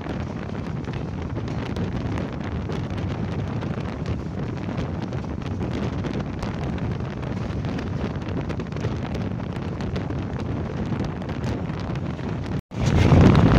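Wind rushing over the microphone with the steady rumble of a passenger train running, heard from the coach's open doorway. The sound drops out for a split second near the end and comes back louder.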